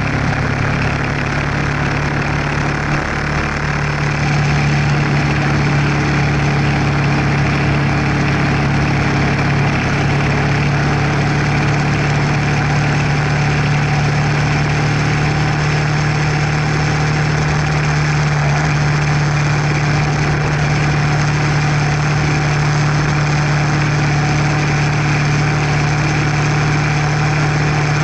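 Kawasaki EN500 Vulcan's parallel-twin engine running steadily at cruising speed, heard from the bike itself, with steady wind rush over it.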